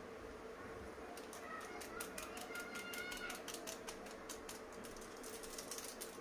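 Metal spoon clicking and clinking against a metal pan while stirring masala into simmering broth, the clicks coming quicker near the end.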